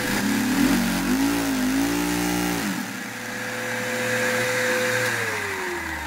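A one-cylinder LEGO vacuum engine revving high, driven by the suction of a loud vacuum cleaner hose. Its pitch wavers up and down in the first few seconds over the steady whine and rush of the vacuum, and near the end the whine falls in pitch as the run winds down.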